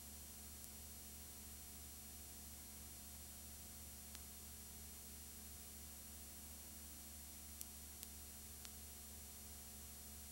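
Near silence: a steady low electrical hum and hiss, with a few faint clicks about four seconds in and again near eight seconds.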